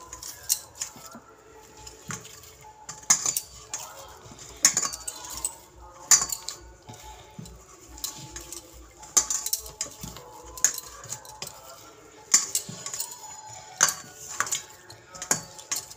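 Dough being kneaded by hand in a stainless steel bowl: sharp metallic clinks at irregular intervals, roughly one every second or two, as the bowl and the kneader's bangles knock together, with the soft pressing and slapping of dough between them.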